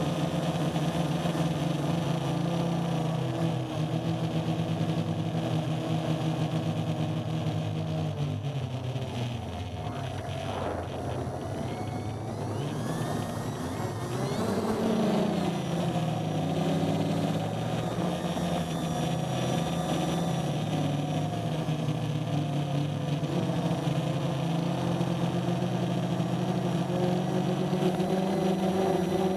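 Quadcopter's four 1000kv brushless motors with 10x4.5 propellers buzzing in flight, heard close from the onboard camera. The pitch sags about a third of the way in, swings back up around the middle, and then wavers with the throttle.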